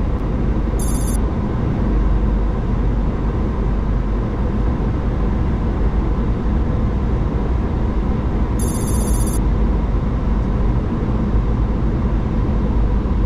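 Steady rush of airflow and engine noise inside a Boeing 737-800 cockpit on final approach. A brief, high, pulsing electronic tone sounds twice, about a second in and again about nine seconds in.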